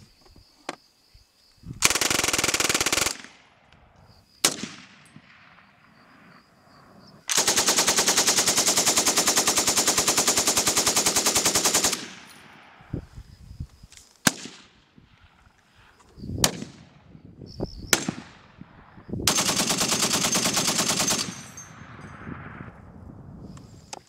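Automatic firearms firing in full-auto bursts. A short burst comes about two seconds in, a long one of nearly five seconds follows, and a third of about two seconds comes near the end, with a few single shots in between, each trailing off in an echo.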